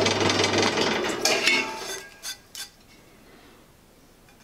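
Pillar drill running, its motor hum cutting off under a second in and the whir dying away over the next second. A few light metallic clinks follow.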